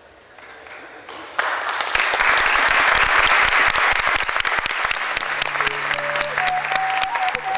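Audience applauding, swelling sharply about a second and a half in. Music with long held notes comes in under the clapping after about five seconds.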